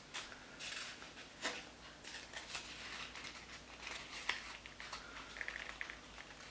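Sheet of copy paper being handled and bent into a curved fold: faint rustling and crinkling with light clicks, and a brief run of quick soft ticks near the end.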